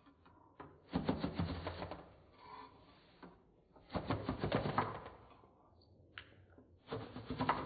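Hand crimper working, its rollers or jaws clicking rapidly in three bursts of about a second each with short pauses between.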